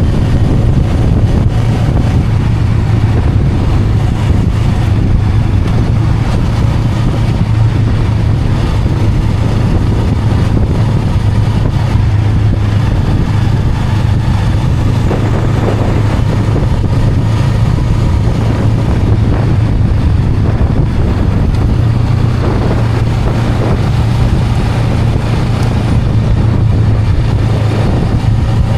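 Honda Rebel 500's parallel-twin engine running at a steady pitch as the motorcycle is ridden, with road and wind noise.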